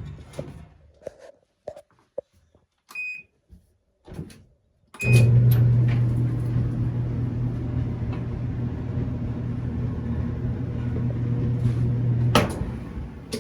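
Whirlpool dryer being started after an idler pulley replacement: a few clicks and knocks and short beeps, then the motor and tumbling drum running with a steady low hum for about seven seconds, which stops suddenly with a click near the end.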